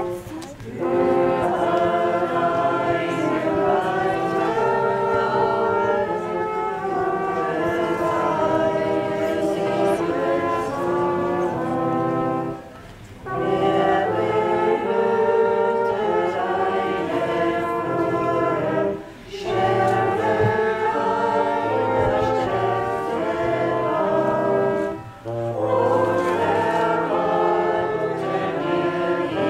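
Closing hymn played by a brass band, with voices singing along in held chords, phrase by phrase, with a short break about every six seconds.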